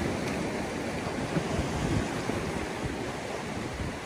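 Ocean surf washing and breaking against a rock shelf in a steady rush, with wind buffeting the microphone.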